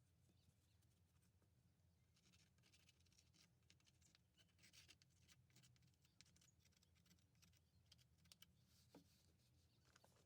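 Near silence: faint room tone with scattered light clicks and scratching.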